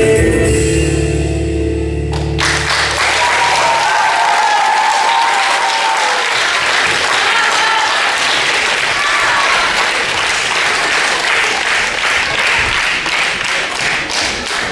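Recorded dance music ends abruptly about two and a half seconds in, and audience applause follows.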